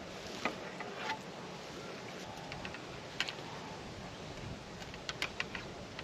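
Light metallic clicks and ticks of steel fencing wire and pliers being handled, a handful of them scattered irregularly over a steady background hiss.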